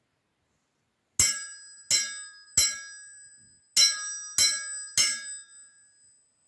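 Metal sai struck six times, in two sets of three, each strike ringing out with a bright metallic tone that dies away over a second or so.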